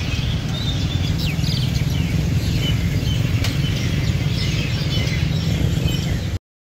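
A large flock of small birds twittering and chirping continuously, many short calls overlapping, over a steady low rumble of street noise. All sound cuts off abruptly near the end.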